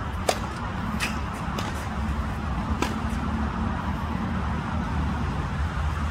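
Tennis racket striking the ball on a serve, one sharp crack about a third of a second in, then a few fainter knocks over the next couple of seconds, over a steady low rumble.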